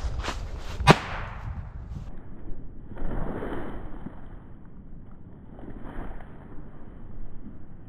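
Footsteps crunching through dry leaf litter and twigs, with a sharp stick snapping underfoot about a second in. After that come three softer swells of noise, two to three seconds apart.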